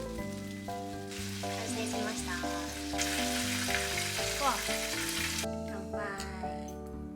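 Food sizzling as it fries in hot oil, over background music. The sizzle starts about a second in, is loudest in the middle and stops about two seconds before the end, leaving the music.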